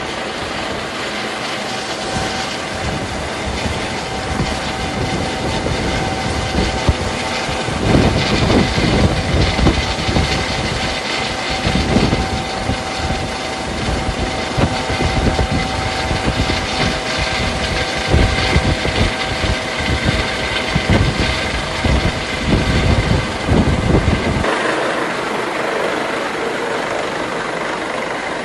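Ship's engine running with a steady machinery hum. From about eight seconds in, heavy uneven low rumbling comes and goes over it, then drops away suddenly near the end.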